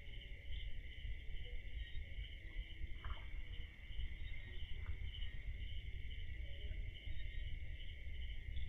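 A steady chorus of crickets, trilling in a high band that pulses lightly, over a low rumble.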